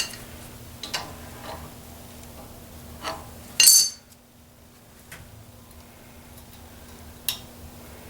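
A few sharp metal clinks and clicks spread over several seconds, the loudest about three and a half seconds in: the steel castellated nut lock being worked over the trailer's spindle nut to line it up with the cotter-pin hole.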